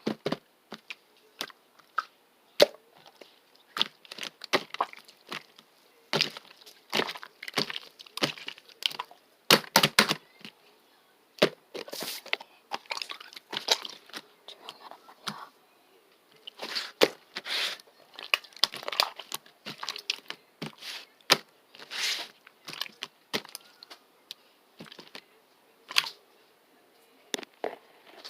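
Slime being squished and kneaded by hand: irregular clusters of sticky clicks and crackling pops, with short pauses between handfuls.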